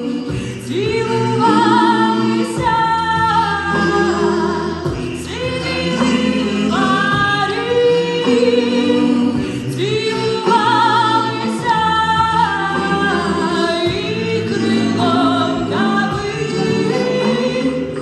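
A vocal group of a man and three women singing held notes in close harmony through the stage microphones and PA.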